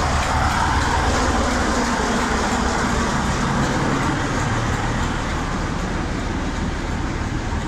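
Class 47 diesel locomotive 47635 idling, its Sulzer twelve-cylinder engine running with a steady low drone.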